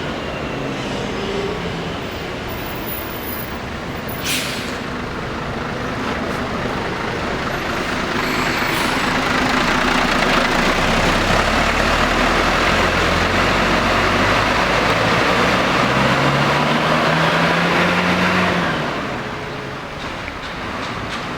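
Large diesel bus engine running, with a short sharp air-brake hiss about four seconds in. From about eight seconds the engine noise grows loud as a bus pulls away or passes, its pitch rising near the end, then it eases off.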